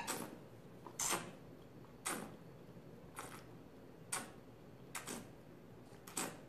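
A wine taster sucking air through a mouthful of wine in short slurping draws, about once a second, to aerate it on the palate.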